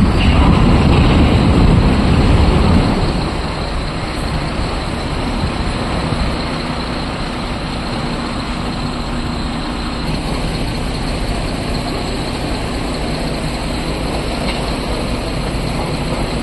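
BharatBenz tipper truck's diesel engine revving hard for about the first three seconds, then running steadily as the truck creeps forward with its dump body raised.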